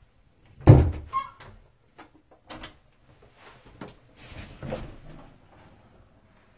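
Thumps, clicks and rattles of a house's front door being unlatched and swung open, with a loud thump about a second in.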